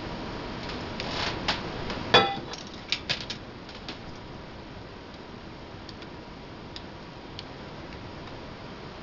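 A small saucepan knocked and then set down on the electric stovetop: one loud metallic clank with a brief ring about two seconds in, a few lighter knocks after it. Faint clicks of metal tongs on a plate follow.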